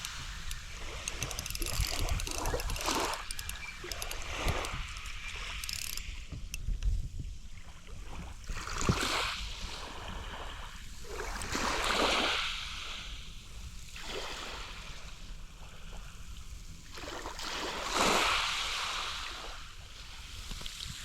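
Small waves breaking and washing up a sandy shore, the hiss of each wave swelling and fading several times, with a low rumble underneath.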